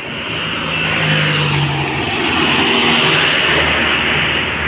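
Road traffic: a car engine goes by close about a second in, over steady tyre and wind noise.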